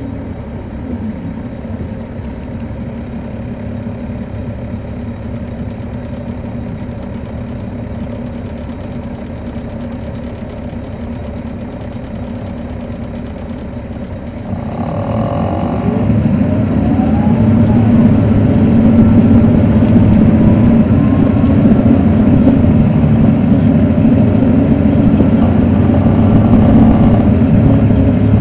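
Caterpillar C13 diesel engine of an MCI D4500CL coach, heard from on board. It runs at a steady, lower level for about the first half, then gets much louder halfway through as the bus accelerates, its pitch climbing before it settles into a strong, steady pull.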